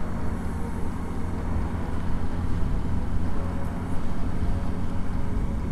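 Honda CB900 Hornet (919) inline-four engine running at a steady cruise while riding, with road and wind noise.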